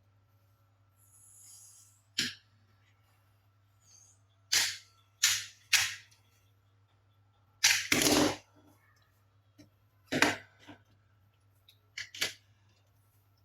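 A run of sharp clacks and knocks at uneven intervals, about eight in all. The loudest is a double knock about eight seconds in, over a faint steady hum.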